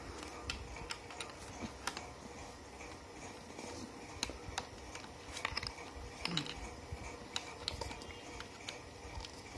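Faint, irregular small plastic-and-metal clicks and scrapes as a tiny nano USB receiver is fiddled into a laptop's USB port.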